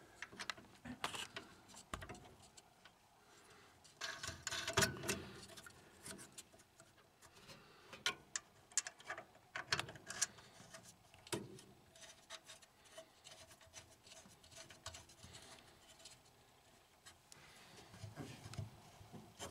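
Light metal clicks, taps and scrapes from hands and tools working an oil burner's nozzle line and electrode assembly into the burner housing, scattered and irregular, with a cluster about four seconds in and another around eight to eleven seconds.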